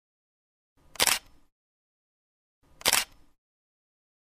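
Camera shutter click sound effect, heard twice about two seconds apart, with dead silence between the clicks.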